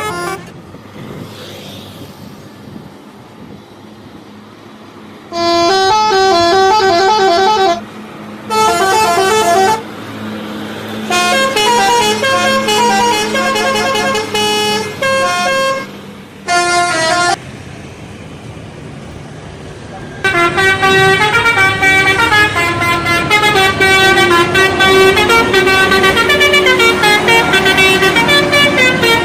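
Indonesian bus telolet horn playing quick stepped melodies of several pitched notes. It comes in separate bursts from about five seconds in, then in one long unbroken run through the last third, over a steady hum from the bus engine.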